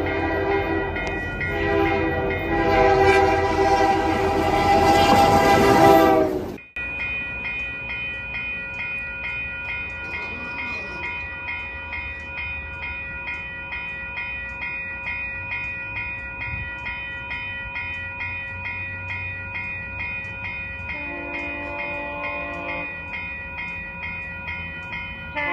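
A CN diesel locomotive's horn blowing several loud blasts over the running engine. After a cut, a railway crossing warning bell rings steadily at about two strikes a second, and a GO Transit train's horn sounds faintly in the distance near the end.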